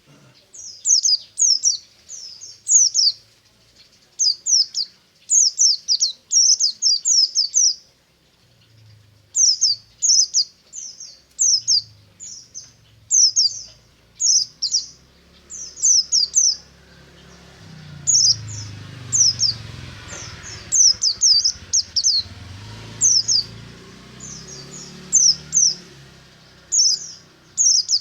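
White-eye (pleci) singing a rapid series of short, high, falling chirps in quick clusters, with brief pauses between runs. A faint low rumble joins in around the middle.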